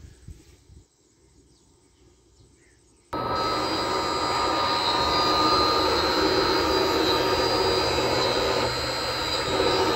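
Very quiet for about three seconds, then a sudden start of a large three-phase electric motor running steadily on a variable-frequency solar pump drive. It is a loud, even hum with steady high-pitched whining tones over it.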